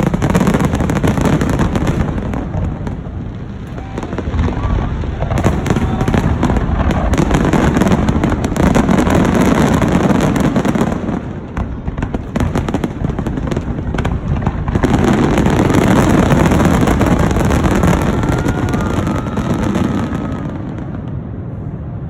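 Aerial fireworks bursting in dense, overlapping volleys of booms and crackles, with short lulls between the heaviest passages, then thinning out near the end.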